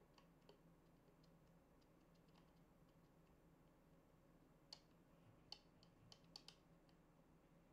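Faint clicks from the control buttons of a YC Onion Energy Tube LED light being pressed, scattered at first, then a quick cluster of louder ones from about five to six and a half seconds in, over near-silent room tone.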